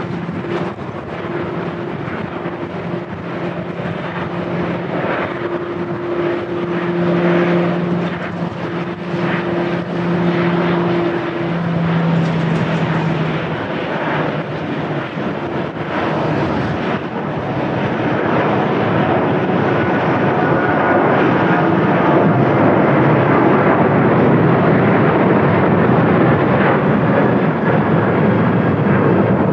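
Jet airliner engines running at an airport: a steady two-tone hum over a rushing noise, which swells and grows louder from about halfway through.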